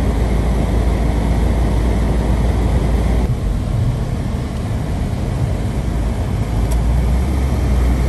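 Steady low rumble of road and wind noise inside a car's cabin while driving on a snow-covered road, easing for a few seconds midway before building again.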